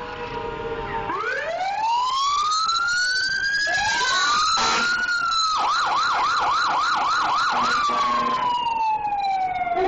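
Fire truck siren wailing in long rising and falling sweeps, switching about halfway to a fast yelp of about four cycles a second, then winding down in a long falling tone near the end.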